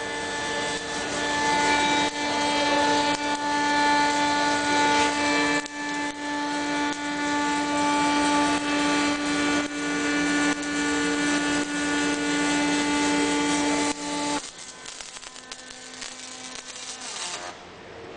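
Panasonic robotic arc welder laying a weld bead on a steel excavator arm: a steady crackling, hissing arc with a steady buzzing tone underneath. About fourteen seconds in the arc stops and the sound drops suddenly to a much quieter noise.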